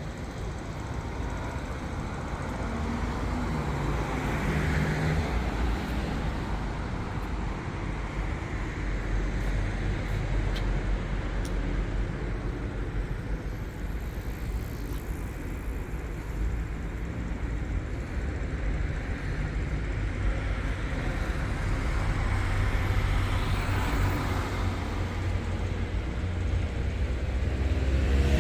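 City street traffic: cars driving past with a steady engine and tyre rumble that swells as vehicles pass, about five seconds in and again near the end.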